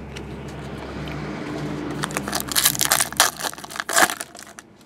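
Foil trading-card pack wrapper crinkling and crackling as it is ripped open by hand. It builds to a burst of sharp crackles in the second half.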